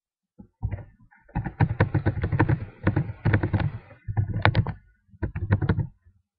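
Typing on a computer keyboard: quick runs of keystrokes with short pauses between words, each stroke a clack with a low thud.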